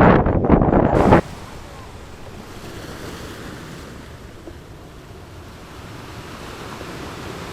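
Wind buffeting the microphone for about the first second, cutting off suddenly, then a steady wash of ocean surf.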